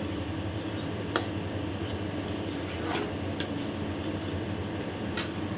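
Spatula stirring and scraping dry semolina and peanuts round a steel kadai as they roast, with a few light clicks of the spatula against the pan over a steady low hum.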